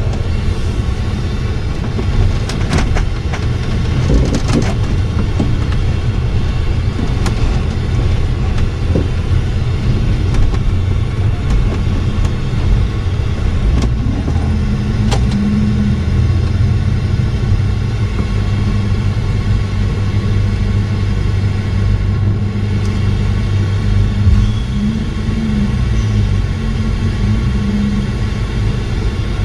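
Motorhome engine and road noise heard from inside the cab while driving: a steady low rumble with a few sharp rattles a few seconds in and again midway, and the engine's pitch shifting near the end.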